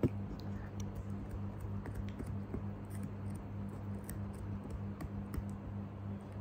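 Maltese puppy gnawing a chew stick: scattered small clicks and ticks of teeth working the chew, with one sharper click right at the start, over a steady low hum.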